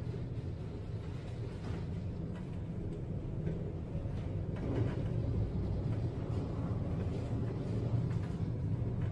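Steady low rumble of storm wind and ship noise aboard a tanker ploughing through heavy seas, with a brief surge of noise about halfway through.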